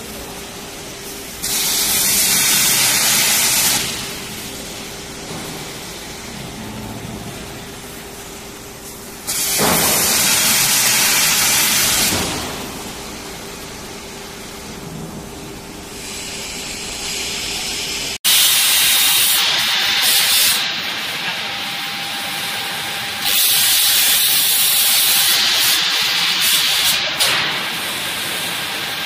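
CNC plasma cutting table's torch cutting steel sheet. Loud hissing bursts of two to three seconds as the arc cuts, with a quieter air hiss between them. Near two-thirds through, the sound switches abruptly to another plasma table cutting, with more long bursts of hiss.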